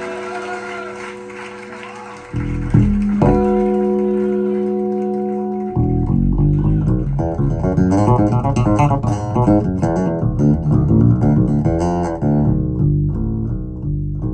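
Recorded guitar and bass-guitar music played through Vandersteen 2Ce floor-standing loudspeakers driven by a Sugden IA4 integrated amplifier. Held bass notes and chords open it, and about six seconds in it breaks into a busy run of plucked notes.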